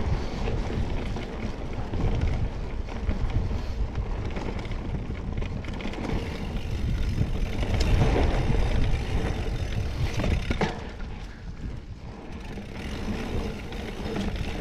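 Mountain bike riding down a rough trail: wind buffeting the microphone over the rumble and rattle of the tyres and bike on the dirt, rising and easing with speed, with a sharp knock about ten seconds in.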